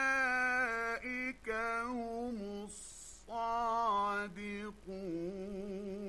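A male Quran reciter chanting in the slow, melodic mujawwad style. He holds long ornamented notes that waver and glide in pitch, with short breaks between phrases, the longest about three seconds in.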